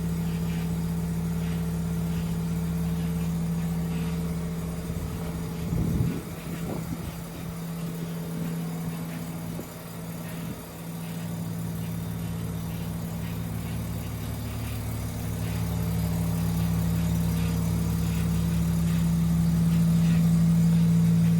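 Side-ported 13B-REW rotary engine in an SA22C RX-7 idling through a homemade pail-can silencer, with a brief rev about six seconds in and a louder steady idle near the end. Behind it runs a faint rattling clatter from the fuel pump, which was running with no petrol in the tank.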